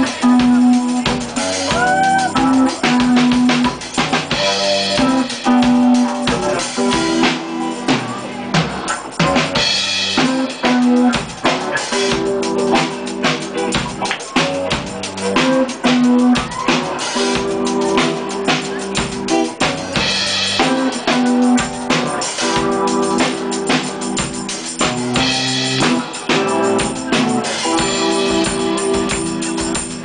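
Live rock band playing a song: a drum kit keeps a steady beat on bass drum, snare and cymbals under an electric guitar, with a repeating riff of held low notes that alternate every second or two.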